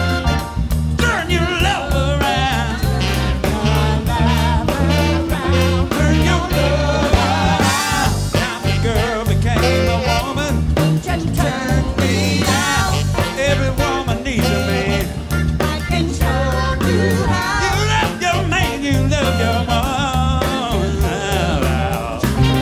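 Live soul-funk band playing, with vocals wavering over Hammond organ, a steady bass line and drums.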